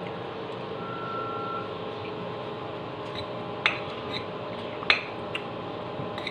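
Cutlery clinking against a plate while eating, a few light clicks with the two sharpest about three and a half and five seconds in, over a steady background hum.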